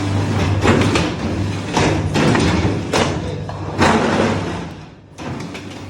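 Semi-automatic hydraulic paving-block press running: a steady low hum from its motor and pump, with loud clanks and thuds about once a second, easing off near the end.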